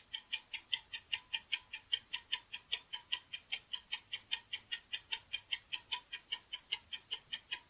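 Clock-style ticking sound effect counting down: steady, evenly spaced sharp ticks, about five a second.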